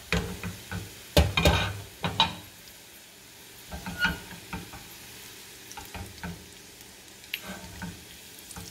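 Chicken shami kababs frying in shallow oil in a nonstick pan, a light sizzle under a run of knocks and clinks as a fork lifts them out; the loudest knocks come a little after a second in.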